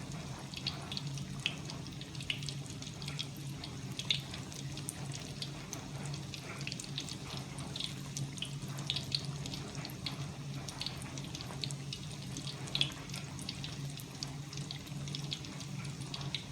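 Rainwater running and dripping, with many irregular sharp drop ticks over a steady water hiss, and a steady low hum underneath.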